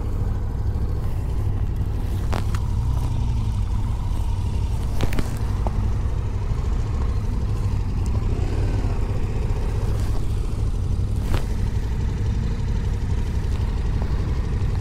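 Motorcycle engines idling with a steady low rumble, broken by a few sharp clicks about two and a half, five and eleven seconds in.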